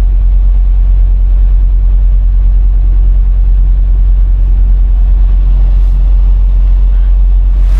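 Semi-truck's diesel engine running with a steady low rumble, heard from inside the cab while the truck turns.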